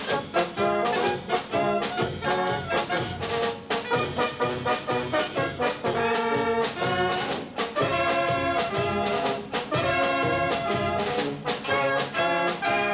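A wind band playing a brisk tune, trumpets to the fore with clarinets, in a quick, even rhythm of short notes.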